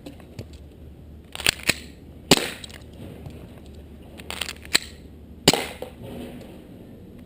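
Two sharp shots from a KJW SIG Sauer P226 gas blowback airsoft pistol, about three seconds apart, each preceded by a pair of quieter metallic clacks from a quick magazine change.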